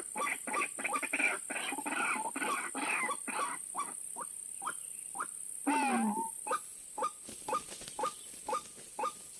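White-breasted waterhen calls: a fast, rhythmic series of repeated croaking notes that slows after about four seconds into single short notes about two a second, with one longer falling call about six seconds in. A steady high-pitched whine runs underneath.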